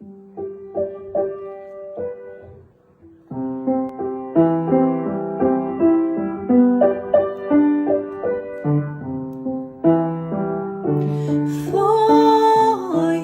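Piano playing a slow, gentle introduction of chords and melody notes; a voice joins in singing about eleven seconds in.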